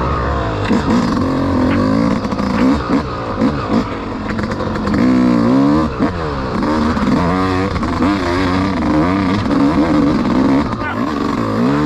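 Two-stroke enduro dirt bike engine, a Yamaha YZ250X, riding off-road with the revs rising and falling again and again as the throttle is opened and closed.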